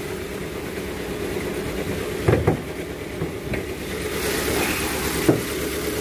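Hyundai Elantra 1.6 four-cylinder engine idling with a misfire. Sharp knocks come about two seconds in and again near the end as the hood is released and lifted.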